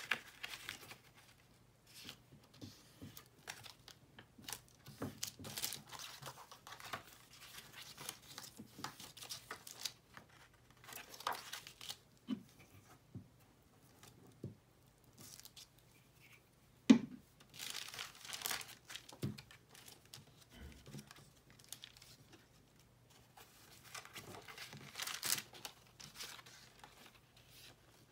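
Craft paper being folded, pressed flat and glued: irregular bursts of paper rustling and crinkling, with a glue stick rubbed across the sheet. One sharp click a little past halfway is the loudest sound.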